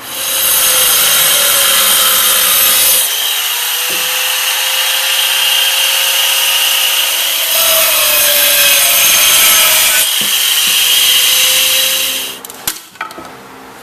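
A handheld power tool running at high speed, cutting into a boat's exhaust muffler section, its motor whine wavering slightly as it bites. It stops about twelve seconds in, followed by a few sharp clicks.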